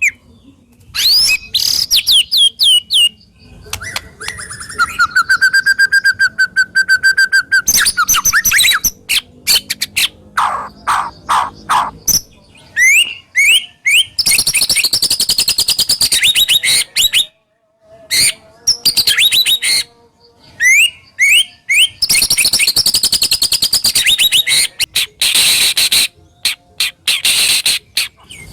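White-rumped shama (murai batu) singing a long, varied song of fast, sharp rapid-fire notes and trills, with held whistles and runs of quick repeated notes, broken by a few short pauses.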